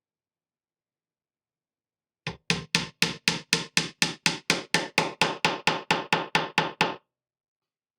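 Hammer driving wooden pins into the bottom of a wooden crate: a quick, even run of about twenty blows, some four a second, starting a couple of seconds in and stopping abruptly.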